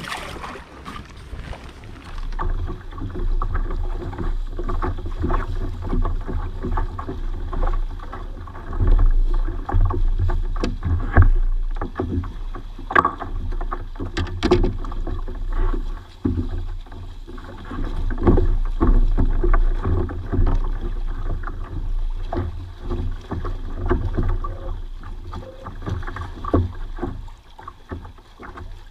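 Water slapping and lapping against a plastic fishing kayak's hull, with a low uneven rumble and scattered knocks. A splash right at the start as a fish goes back into the water.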